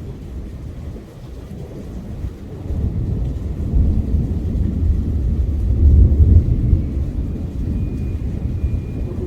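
Rolling thunder: a deep rumble that swells from about three seconds in, is loudest just past the middle, then eases off.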